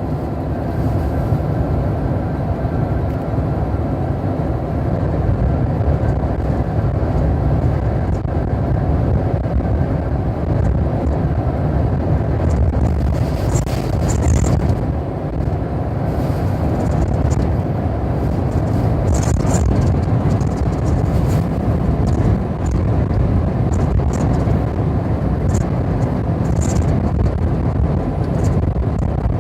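Car driving, a steady low rumble of engine and road noise, with a few brief hisses now and then.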